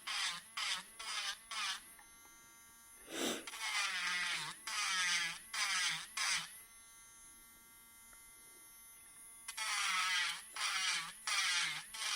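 Electric nail drill with a sanding bit grinding excess resin off a jewelry piece. It makes short, loud, rasping strokes about two a second, the whine's pitch dipping on each stroke. Between about 2 and 3 seconds and again from about 6.5 to 9.5 seconds in, it drops back to a quieter steady whine as it runs free, with a brief low thump near 3 seconds.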